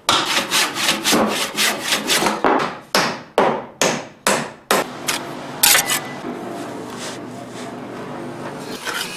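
A hammer driving nails into wooden house framing: a quick run of blows, then slower ones about two a second, stopping about five seconds in. After that comes quieter steady work noise with a single knock.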